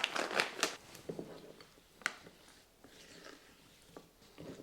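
Light kitchen handling noises: a few soft rustles and clicks at the start, a single sharp tap about two seconds in, then faint small knocks, as the sugared blueberries and their bowl are handled.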